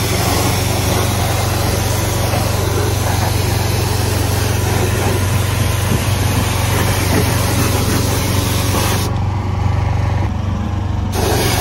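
Pressure washer spraying a water jet into a car's engine bay: a steady hissing spray over the pressure washer's constant motor hum. About nine seconds in the spray stops for about two seconds while the motor keeps running, then starts again.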